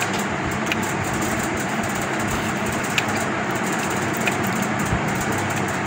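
Steady background hum and hiss at an even level, with a few faint ticks.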